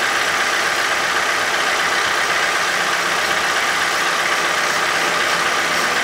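John Deere utility tractor's diesel engine idling steadily, holding its loader raised.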